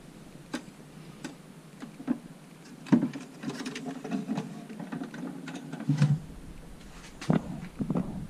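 Scattered light clicks, taps and rustles of a wooden chest being handled. About six seconds in there is a louder knock with a low thump, as the wooden lid is shut.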